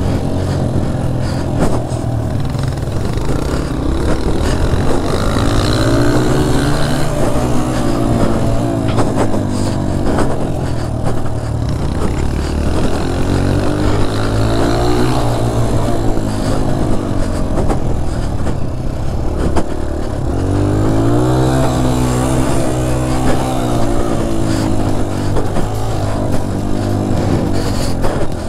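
Dirt bike engine being ridden hard, its pitch climbing and dropping again and again as the throttle is opened and closed through the turns, with a steady rush of wind noise on the microphone.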